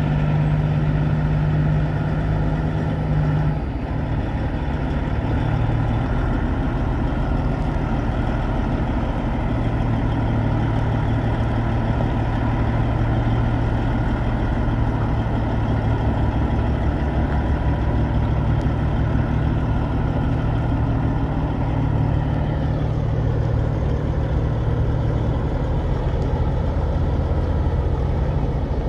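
Caterpillar C15 inline-six diesel in a Peterbilt 386 semi truck idling steadily, with a small dip in level and a slight drop in tone about three and a half seconds in.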